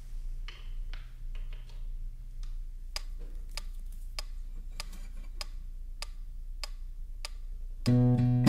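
A regular ticking, about one and a half ticks a second, over a faint low hum; a strummed acoustic guitar comes in near the end.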